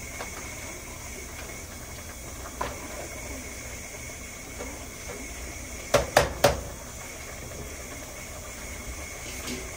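Three sharp clanks of kitchen utensils or dishes in quick succession about six seconds in, over a steady low hiss.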